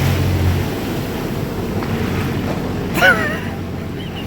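Wind buffeting the microphone and sea water sloshing around jet skis. A low engine hum stops under a second in, and about three seconds in there is a short, wavering high-pitched vocal cry.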